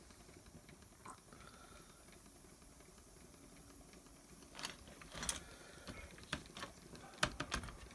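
Faint room tone, then from about halfway through a handful of light, irregularly spaced clicks and knocks, like handling on a workbench.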